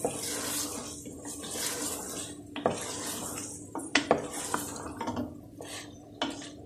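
Wooden spoon stirring and scraping chicken and black-eyed peas frying in masala in an aluminium pressure cooker, with a hiss that swells and fades with each stroke. There are a few sharp knocks of the spoon against the pot, two close together about four seconds in.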